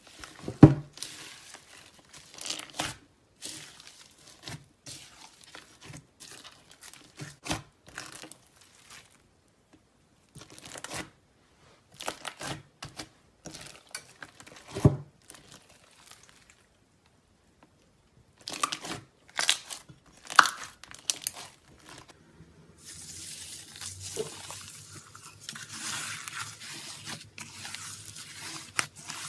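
Slime being squeezed and pressed by hand, giving runs of short crackling and popping sounds. Partway through it goes briefly quiet, and in the last part the crackling turns into a steadier hiss over a faint low hum.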